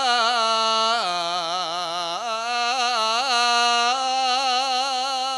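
A solo voice sings a bowo, the unaccompanied Javanese sung prelude in tembang Asmarandana, drawing one syllable out into a long melismatic line with wavering ornaments. The pitch dips about a second in and climbs back about a second later.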